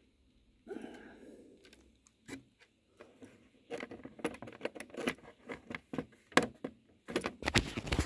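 Handling noise from a phone microphone: a short rustle about a second in, then a run of clicks, taps and scrapes that grows busier near the end as the phone is picked up and moved.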